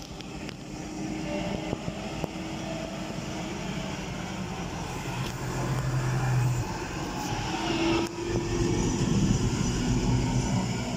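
Tractor diesel engine working as the tractor drives over a heap of chopped silage to pack it down. The engine note rises and falls, and is loudest as the tractor comes close, about six seconds in and again a little later.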